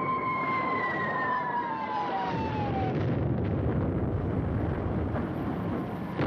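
Whistle of falling aerial bombs, a pitch that slides slowly downward and fades out over the first few seconds. About two seconds in, the low rumble of the explosions takes over and keeps on.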